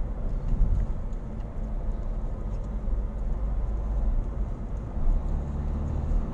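Car driving along a road, heard from inside the cabin: a steady low rumble of engine and tyre noise, with a low engine hum growing stronger about five seconds in.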